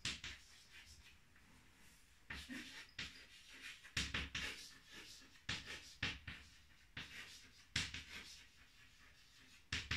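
White chalk scratching and tapping on a chalkboard as words are handwritten, in short irregular groups of strokes with brief pauses between them.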